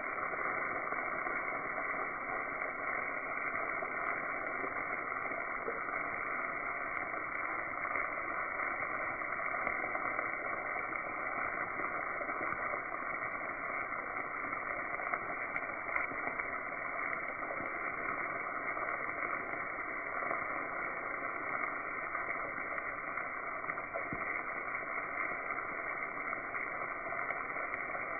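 Battered morel mushrooms sizzling steadily in hot fat in a frying pan, with scattered faint pops of spattering oil.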